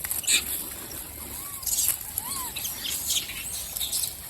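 Several short, high chirping squeaks, each rising then falling in pitch, with scattered clicks and rustling.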